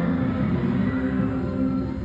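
Loud music played over stage loudspeakers for a dance performance, running steadily with sustained bass notes.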